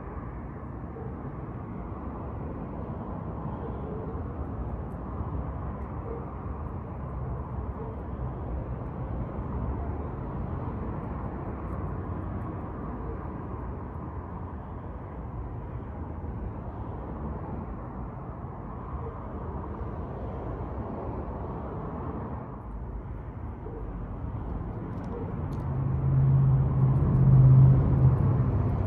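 Steady low outdoor background rumble. A louder low hum swells for a few seconds near the end.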